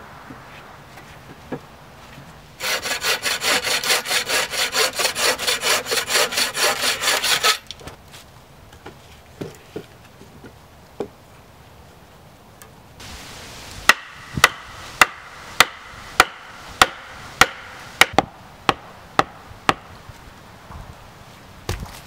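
A hand saw cutting through a log with fast, even back-and-forth strokes for about five seconds. Later comes a series of about a dozen sharp wooden knocks, roughly one every half second.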